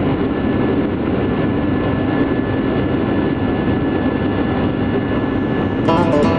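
Jet airliner's engines heard from inside the cabin while the plane taxis: a loud, steady rush with a thin whine on top. Near the end, music comes in.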